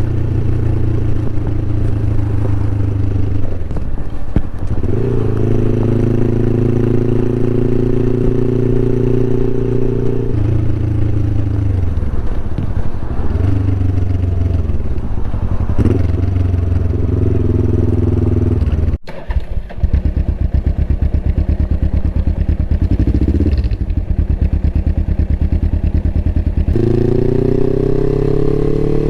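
Suzuki GS500E's air-cooled parallel-twin engine running through a Takkoni aftermarket exhaust while riding, its pitch rising and falling several times as the throttle is opened and closed. About two-thirds through the sound cuts out for a moment. The engine then runs at low revs with distinct, separate firing pulses before revving up and dropping back near the end.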